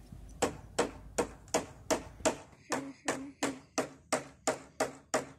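Mallet knocking the wooden beams of a pergola's cross-halving joints down into place: a steady run of sharp knocks, about three a second.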